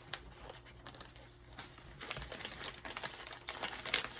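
Plastic snack package of dried carrots crinkling and crackling as it is handled and opened, in irregular clicks that grow busier in the second half.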